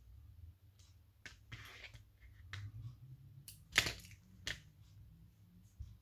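Hands handling embroidery thread and fabric: a brief rustle, then a few sharp clicks, the loudest about four seconds in.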